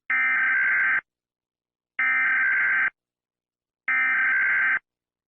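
Emergency Alert System SAME header: three identical shrill, buzzy data bursts, each just under a second long and about two seconds apart. This digital header opens an EAS alert and encodes its type and area.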